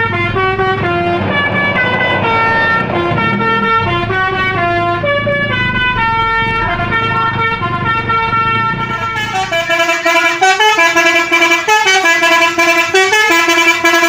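Telolet horns of Indonesian coaches playing a melody of held, stepping notes. In the first part the coach's engine runs low underneath the horn. About nine and a half seconds in, a second telolet horn takes over with a quicker back-and-forth run of notes.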